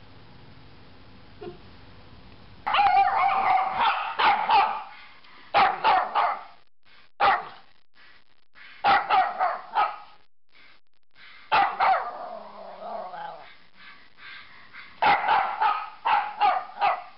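Bichon frise barking in rapid bursts of several barks each, with short pauses between the bursts. The barking starts about three seconds in.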